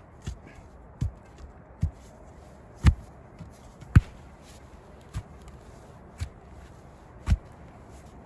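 A shovel being driven into packed earth and debris, a dull thud about once a second, eight strikes in all. The two strikes about three and four seconds in are the loudest.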